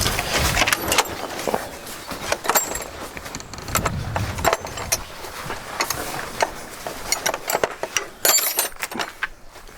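Irregular metallic clicks and clinks of hand wrenches and sockets on battery cable terminal bolts, some ringing briefly.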